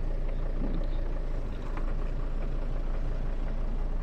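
Sprinter van's diesel engine idling steadily with the clutch pedal held down; the dual-mass flywheel's knock and the hunting idle have settled.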